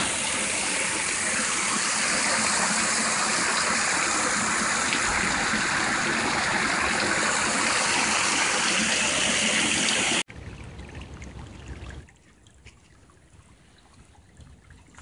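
Rainwater runoff pouring through a street storm drain grate: a loud, steady rushing of water. It cuts off suddenly about two-thirds of the way through, leaving a short low rumble and then only faint outdoor background.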